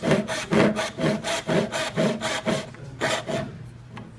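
Hand saw cutting wood for a tenon in quick back-and-forth strokes, about four a second, stopping about three and a half seconds in.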